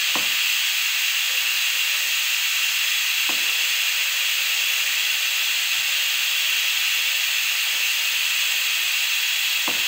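Food steamer hissing loudly and steadily as it steams octopus to make it tender. Three soft knocks of a knife on a wooden cutting board come at the start, about three seconds in and near the end.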